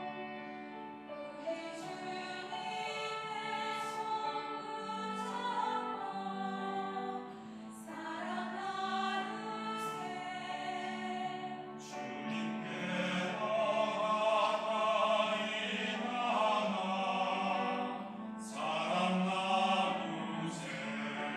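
Church choir singing a sacred anthem, many voices holding sustained chords.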